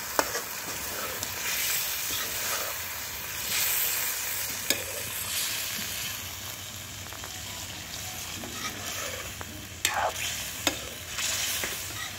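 A metal ladle stirring chicken and potato curry in a metal kadai over a wood fire, scraping through the pan under a steady sizzle of the curry. A few sharp knocks of the ladle on the pan stand out, the loudest a cluster about ten seconds in.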